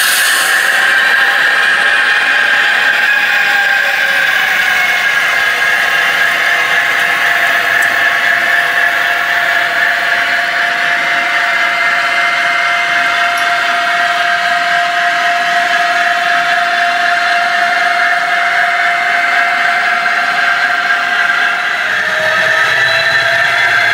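Piko H0 'Ludmilla' model diesel locomotive running, its sound decoder playing a steady diesel engine drone through a small speaker, with a whining tone on top. The pitch sags and rises again near the end.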